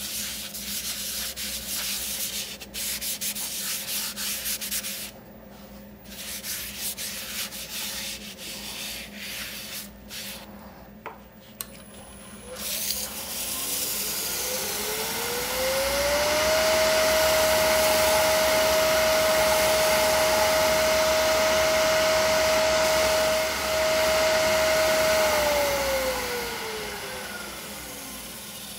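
Sandpaper rubbing on wood in irregular strokes with short pauses. Then a woodturning lathe's motor spins up with a rising hum and runs at a steady pitch for about eight seconds under a loud hiss. It winds back down near the end.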